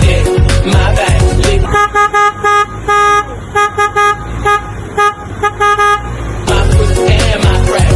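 Background music with a beat, then about ten short toots of a snail-type car horn in quick succession, some a little longer than others, from about two seconds in until the music comes back near the end.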